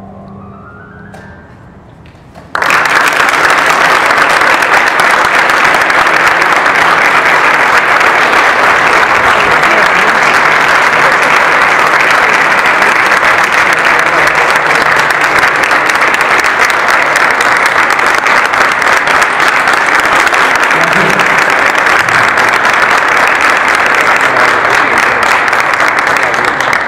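Audience applause: clapping breaks out suddenly about two and a half seconds in, keeps up steadily and densely, and tapers off near the end.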